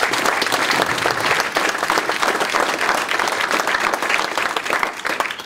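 Audience applauding: a steady round of many people clapping that tails off at the very end.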